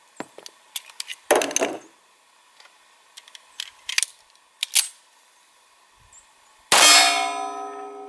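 Semi-automatic pistol being handled, with scattered clicks and a brief rattle. About seven seconds in, a shot with a reduced powder charge sends the bullet into a steel target plate, which rings on in several steady tones as it dies away. The load is too light to extract the fired case from the chamber.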